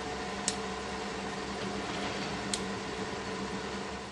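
Milling machine running steadily through a finishing pass on A2 steel vise jaws: a constant mechanical hum with a few sharp ticks, falling away at the very end as the pass finishes.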